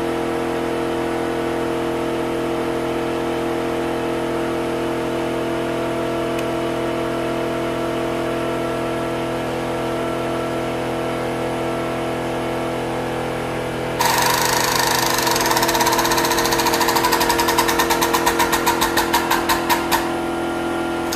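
A steady machine hum runs throughout. About 14 seconds in, an air-over-hydraulic pump starts with a loud hissing rattle that turns into a rapid pulsing beat, its strokes slowing as hydraulic pressure builds in the tube-flaring tool, and stops about six seconds later.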